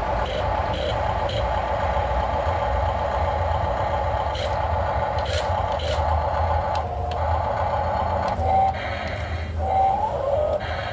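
Radio-controlled model hydraulic excavator running steadily as it digs and lifts sand, with scattered clicks and a few brief pitch changes in the machine's drone as it takes load.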